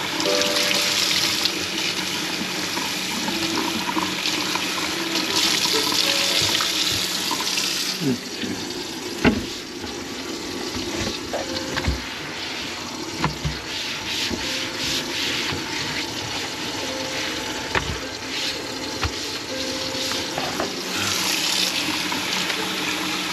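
Water running from a kitchen tap into a sink, the flow heavier at times, with a few sharp knocks in the middle.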